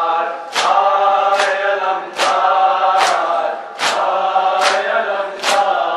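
Large group of men chanting an Urdu nauha lament in unison. Sharp, even strikes of matam, open hands beating on bare chests, keep the beat about every 0.8 seconds.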